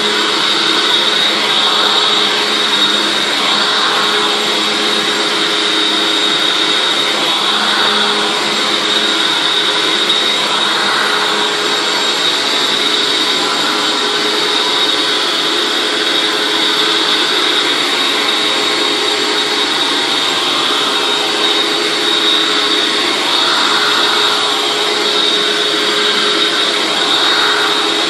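Hoover WindTunnel Anniversary Edition self-propelled upright vacuum cleaner running steadily, its motor and airflow carrying a steady high whine.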